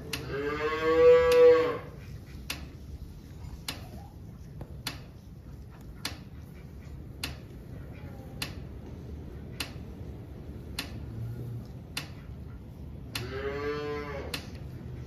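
Cattle mooing twice: one long, loud moo at the start and a second moo near the end. Between them a faint click repeats about once a second.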